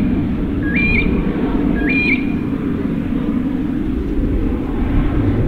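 Steady low rumble of a PC-21's Pratt & Whitney PT6A turboprop engine as the aircraft rolls along the runway. A bird gives a short rising two-note chirp twice in the first two seconds.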